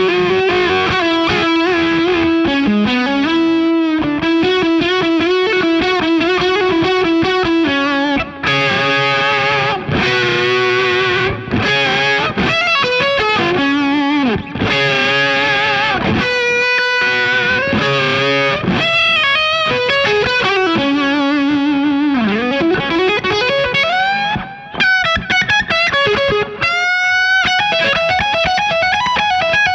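James Tyler Japan Studio Elite HD electric guitar played with a distorted tone. It opens on held lead notes with vibrato, moves into fast runs, and ends with string bends rising in pitch.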